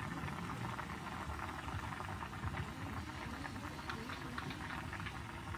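Red, oily broth bubbling at a steady boil in a shallow pan on a portable gas stove, with many small irregular pops.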